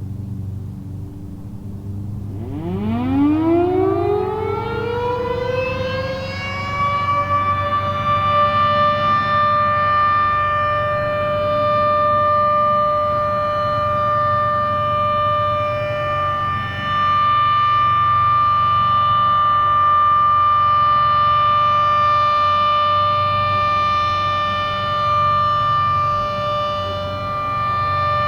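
A Federal Signal Model 7 electromechanical outdoor warning siren winds up from a low growl about two seconds in, rising quickly in pitch over several seconds, and then holds one steady tone. This is the Alert signal of a scheduled siren test.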